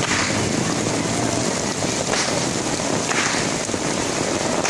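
Heavy rain pouring down: a dense, steady hiss.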